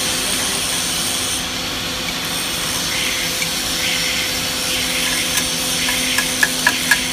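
Steady machinery hum and hiss, with a few light metallic clicks near the end as a spanner is worked against the steel cutting die's guide post.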